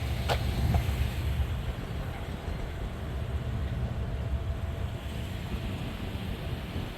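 Low, uneven rumble of wind buffeting the microphone, with a single short sharp sound about a third of a second in.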